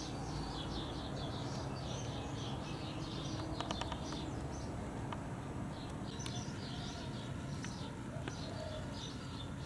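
Small birds chirping continuously in quick, short calls, over a low steady outdoor rumble. There is a brief cluster of clicks about three and a half seconds in.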